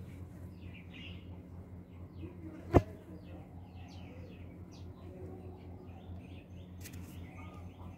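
Birds chirping over a steady low hum, with one sharp, loud click about three seconds in.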